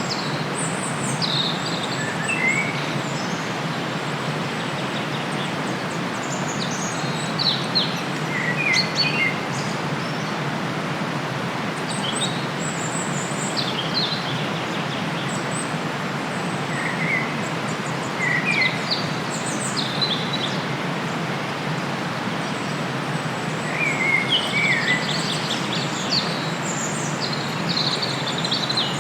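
Birds singing in short, high chirps and trills every second or two over a steady rush of flowing river water.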